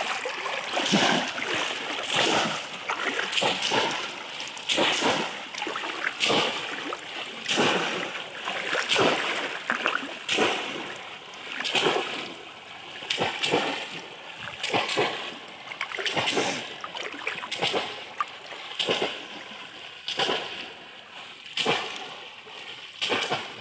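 Repeated splashing of muddy shallow water as cone-shaped bamboo fish traps are plunged down into it and people wade through, a splash about once a second.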